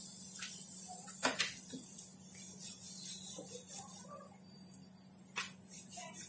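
Wooden rolling pin rolling out chapati dough on a marble board: faint rubbing with a couple of light knocks, over a steady low hum.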